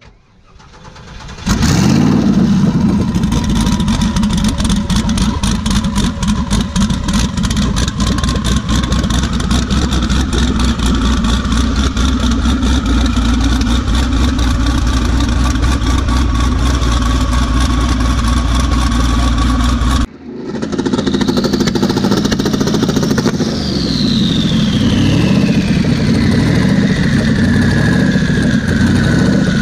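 Loud turbocharged engine of a modified old pickup truck running with a fast, rough firing pulse and a whine on top. It builds up over the first second and a half. About two-thirds of the way through, the sound drops out for a moment and comes back, and a high whistle rises and then glides slowly down in pitch over several seconds.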